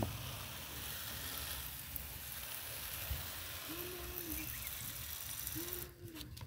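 Water pouring from a watering can and spattering onto potted plants and soil: a steady hiss that stops suddenly about six seconds in.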